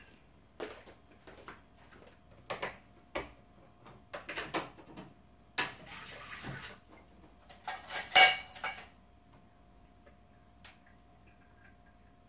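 Dishes and metal cutlery clinking and knocking on a table as a meal is set out, a string of separate clinks, loudest about eight seconds in.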